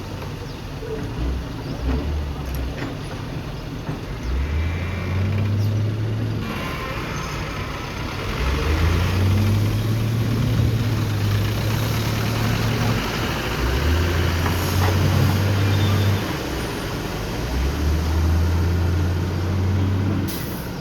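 JCB backhoe's diesel engine revving up repeatedly under hydraulic load as the arm works, each surge rising in pitch and lasting a few seconds, about every four to five seconds.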